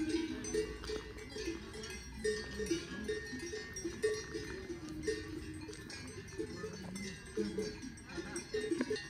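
Several cowbells clanking irregularly, overlapping at no steady rhythm.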